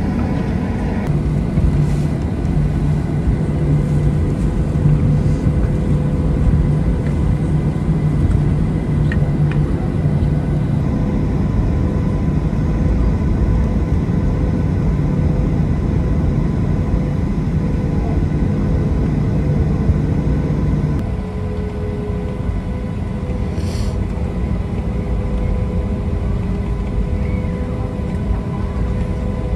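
Boeing 737-900 cabin noise while taxiing, its CFM56-7B engines at idle: a steady rumble with a low hum that drops away about two-thirds of the way through, leaving the cabin a little quieter.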